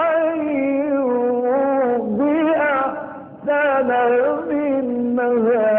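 Male Quran reciter's voice chanting in the slow, melodic mujawwad style, holding long ornamented notes that waver in pitch, with a pause for breath about three seconds in.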